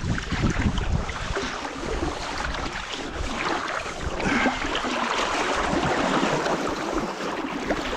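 River water rushing, a steady hiss of fast, high-running water, with light wind buffeting the microphone.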